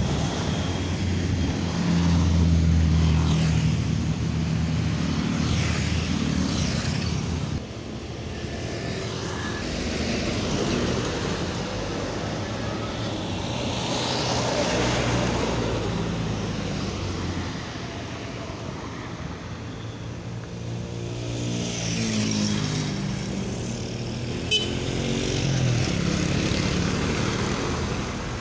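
Road traffic with large vehicles, most likely buses, driving past: the engine sound swells and fades, with a passing vehicle's pitch bending near the end. One short sharp tick comes about three-quarters of the way through.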